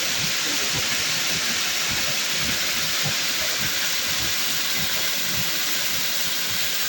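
Waterfall, a steady rush of falling water.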